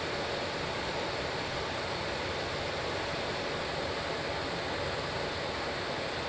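Steady cabin noise aboard a B-52H Stratofortress in flight: an even, unchanging rush of its TF33 turbofan engines and slipstream.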